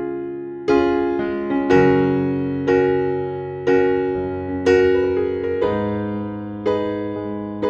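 Background music: piano chords struck about once a second, each ringing and fading before the next.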